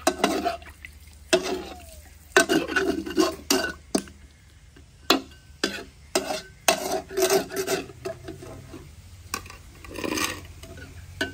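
Metal spatula scraping and clanking against the metal bowl of an electric frying pot in a series of short, irregular strokes as noodles are turned in hot oil, with the oil sizzling underneath.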